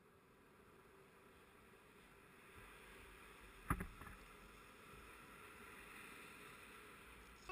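Faint, steady wash of breaking surf, fading in, with one sharp knock about halfway through.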